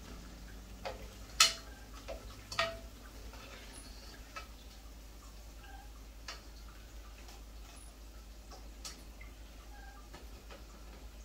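A plastic spatula clicking and tapping against an aluminium frying pot and a metal colander while fried bara are lifted out of the oil: about half a dozen sharp, irregular clicks, the loudest about a second and a half in.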